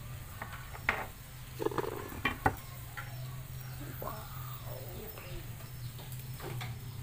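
A cleaver cutting down through a soft steamed yam bread, its blade knocking sharply on the board beneath several times in the first few seconds. A steady low hum runs underneath.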